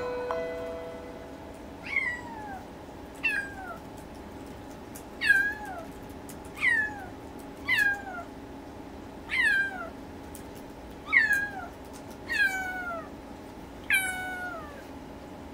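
Siberian kitten meowing over and over, nine calls about a second and a half apart, each sliding down in pitch. The owner takes this for the kitten crying as it searches for its mother.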